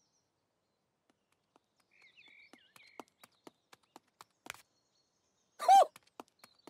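Cartoon sound effects for a walking ostrich: faint chirps, then light regular footstep clicks about three or four a second. Near the end comes a short squawk-like call that rises and falls in pitch.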